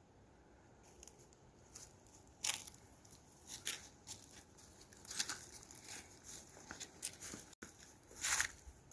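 Footsteps crunching in snow, irregular and uneven. They start about a second in and grow louder toward the end.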